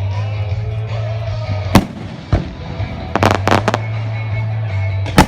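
Fireworks going off: single sharp bangs, then a quick run of four or five reports about three seconds in, and the loudest bang near the end. A steady low hum and faint music run underneath.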